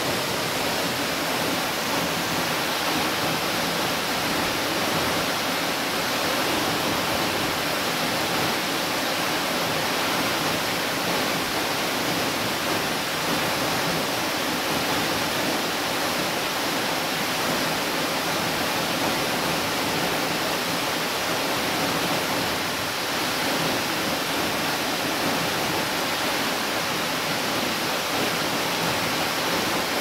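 Waterfall falling into a rock pool: a steady, even rush of water.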